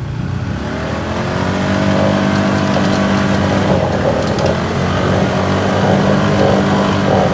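Off-road vehicle engine revving up over the first couple of seconds, then held steadily at high revs under load.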